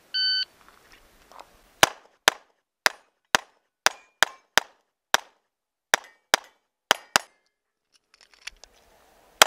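An electronic shot timer beeps once. About a second and a half later, a Walther PPQ 9mm pistol fires a rapid string of about twelve shots over five seconds, some of them followed by the short ring of a struck steel plate. Near the end there is some light handling noise and one more shot.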